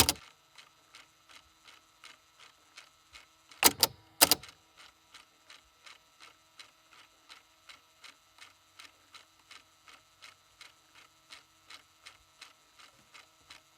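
Mechanical clicking from analog audio playback gear: a sharp click at the start, then even ticking about three times a second, with a cluster of louder clicks about four seconds in.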